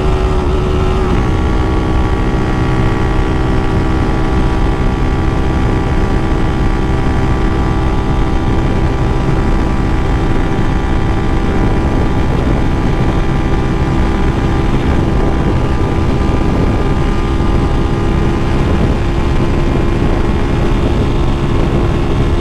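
Single-cylinder 240cc OHC-converted engine of a Honda Titan 2000 motorcycle pulling hard at a steady high cruising speed, its exhaust note dipping slightly about a second in and then holding steady, over wind rumble on the microphone.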